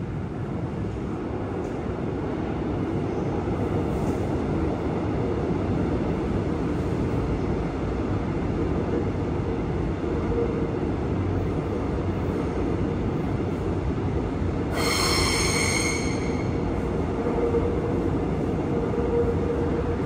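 Seoul Subway Line 2 electric train running into an underground station behind platform screen doors: a steady rumble of the cars rolling along the track. About three-quarters of the way through, a high squeal lasts about a second and a half.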